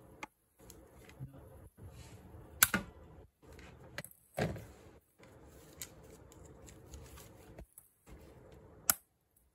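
Handling noise from a plastic 12-volt LED lamp and its plug: a few sharp clicks and a softer knock, the loudest clicks about two and a half seconds in and near the end, over faint background hiss.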